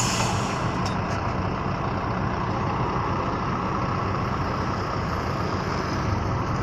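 Heavy diesel vehicle engine running steadily, with a short hiss right at the start.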